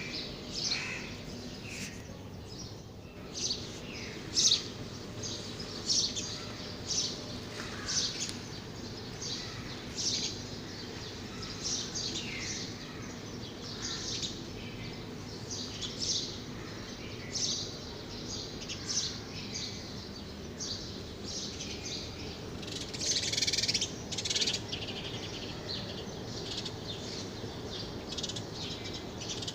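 Small birds chirping, many short calls coming irregularly, over a steady low hum.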